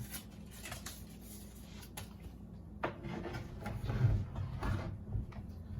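Handling noises: a few sharp light knocks and clicks, then a louder low bump with rubbing about four seconds in.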